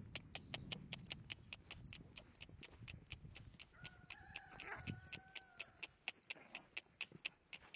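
Faint low thudding of a horse's hooves cantering on grass, dying away after about three seconds, under a steady fast ticking about five times a second. About four seconds in comes a short animal call of two steady tones, lasting under two seconds.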